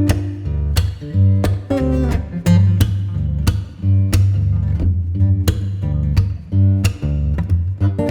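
Background music: a guitar-led track with a strong bass line and a steady beat.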